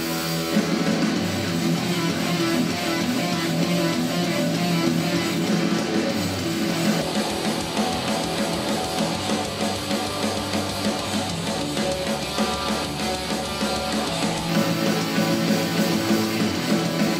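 A pop-rock song's guitar-driven instrumental passage playing through a portable Bluetooth speaker at 80% volume, picked up from six feet away. The deepest bass drops out about fourteen seconds in.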